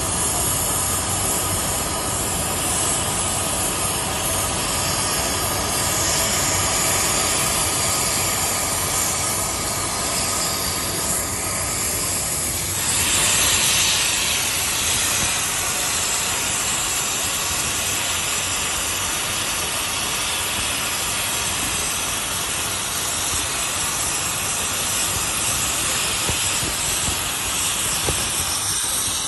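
Air plasma cutting torch on a motorized track carriage cutting through steel plate: a steady hiss of the plasma arc and air jet, which grows louder and sharper for a second or two about thirteen seconds in.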